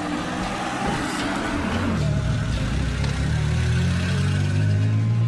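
Car engine running and picking up speed, its low hum growing louder and slowly rising in pitch from about two seconds in.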